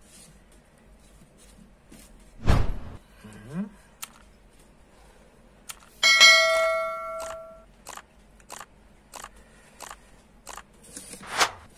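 Subscribe-button animation sound effects: a loud swoosh about two and a half seconds in, then a bright bell-like ding about halfway through that rings out for over a second. After the ding comes a run of evenly spaced clicks, about one and a half a second, and another swoosh near the end.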